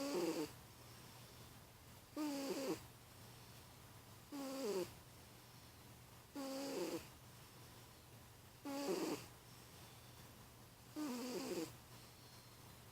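Snoring: six breaths at an even pace, about two seconds apart. Each is a short, wavering, whistle-like tone over a breathy hiss.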